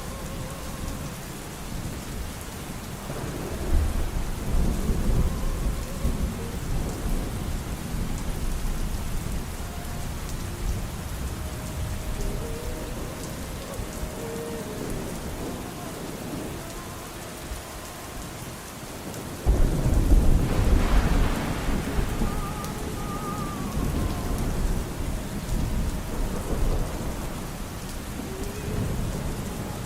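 Steady rain with two rolls of thunder: one about three seconds in and a louder one about two-thirds of the way through. Faint, muffled music sounds beneath the rain.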